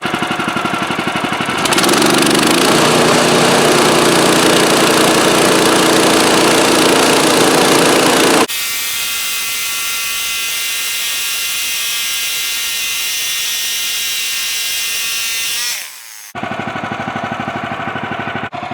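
Bandsaw sawmill with a 14 hp engine making a cut through an aspen cant: the engine runs, then comes up to a loud, steady run as the blade saws through the wood. The sound changes abruptly about halfway through, dips briefly near the end, and settles back to a lighter pulsing run.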